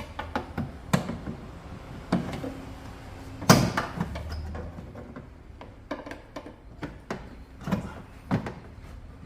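MG3 plastic tailgate trim panel being prised off with a trim tool: a string of sharp clicks and knocks as its retaining clips pop out, the loudest about three and a half seconds in.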